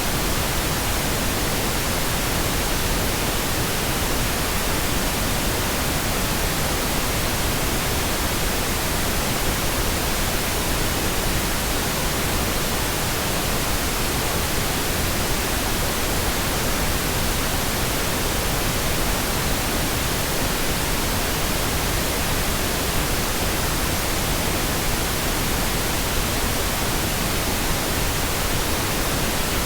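Synthetic pink noise: a steady, even hiss across all frequencies, unchanging throughout.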